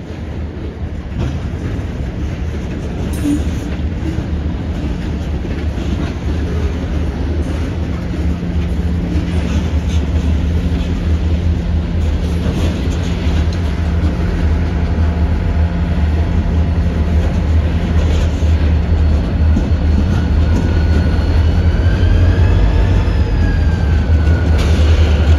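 Slow-rolling freight cars on a CSX switching move, with the steady low hum of the diesel locomotive growing louder as it approaches. Occasional knocks from the wheels and couplers, and a wavering metallic squeal near the end.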